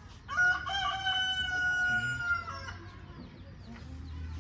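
A rooster crowing once: a single call of about two seconds, held level in the middle.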